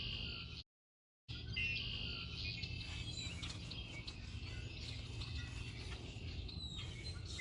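Many small birds chirping over a steady low background rumble, with the sound cutting out to total silence for about half a second, about a second in.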